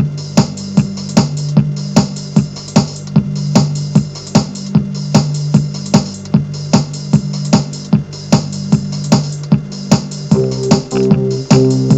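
Electronic music: a steady beat of about two and a half hits a second over sustained low synth notes, with a higher held note joining near the end.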